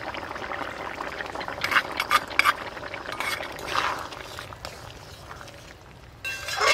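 Curry boiling hard in an aluminium pot, bubbling steadily, while a metal ladle clinks and scrapes against the pot as ground masala paste is stirred in. Near the end comes the loudest sound, a ringing metallic scrape of the utensil on the pot.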